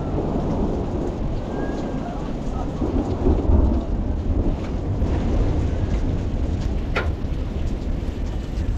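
Heavy rain with rolling thunder, the low rumble swelling about three seconds in. A single sharp tap near the end.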